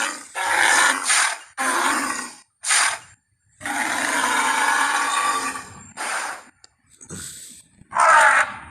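Woolly mammoth creature sound effects: a run of short animal calls, three or four in the first three seconds, then one call held for about two seconds, then a few shorter ones, the last of them loud.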